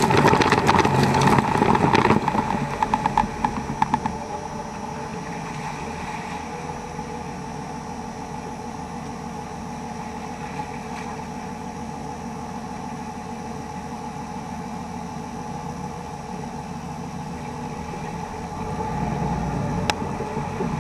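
Water splashing loudly against the truck for the first few seconds, over a Dodge Ram 2500's Cummins 5.9-litre inline-six turbodiesel. After that the diesel runs steadily with the truck in the creek, and it grows a little louder near the end.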